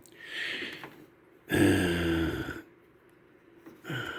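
A man's wordless vocal sound: a breathy exhale, then a drawn-out voiced grunt or "hmm" lasting about a second.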